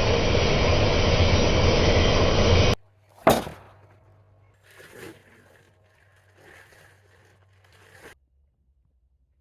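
A loud power saw running steadily through wood, cut off abruptly about three seconds in. A single sharp knock follows, then a few faint scrapes.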